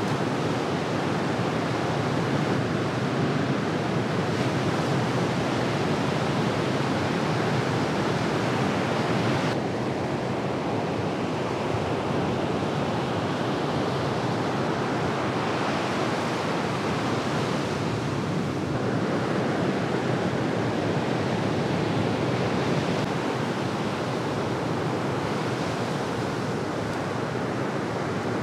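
Ocean surf: a steady wash of breaking waves. Its tone shifts abruptly about ten seconds in and again near nineteen seconds.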